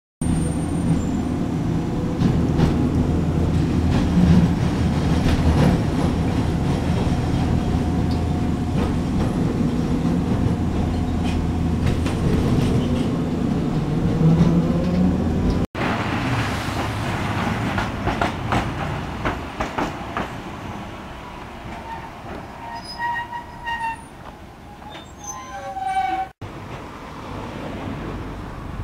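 Street tram running, heard from on board as a steady hum and rumble of its motors and wheels. After a cut about halfway through comes rolling noise with short, high wheel squeals that cluster near the end.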